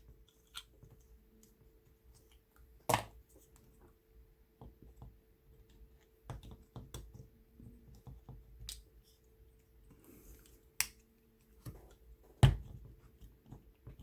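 Scattered clicks and snaps of hard plastic toy parts being handled: a transforming robot figure's chest compartment opened and a small cassette figure taken out. There is one sharp snap about three seconds in and a louder one near the end, with lighter ticks between.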